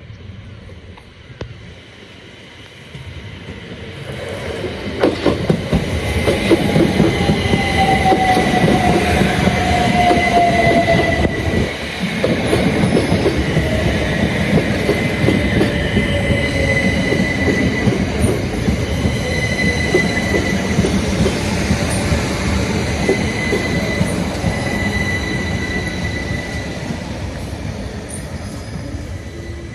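Southeastern electric multiple-unit train running through the station. It builds up about four seconds in to a loud, steady run with a high, steady squeal from the wheels and wheel clatter, then fades slightly near the end.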